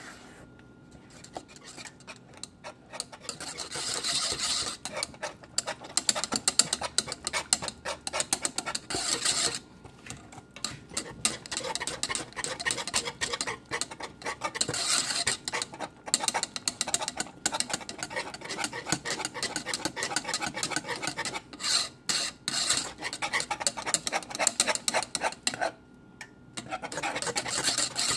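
A kitchen utensil stirring and scraping a thick starch-and-agar cheese mixture around a speckled nonstick pan on the burner: a fast, continuous rasping with a few short pauses. The mixture is being cooked down until it thickens.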